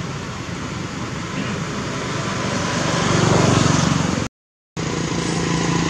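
A motor vehicle engine running nearby, its hum growing louder about three seconds in; the sound cuts out completely for about half a second near the end, then the engine hum carries on.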